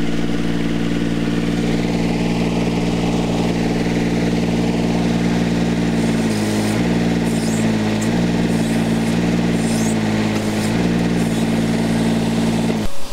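Mini excavator's engine running steadily. Its pitch dips briefly about six seconds in and shifts again near eleven seconds.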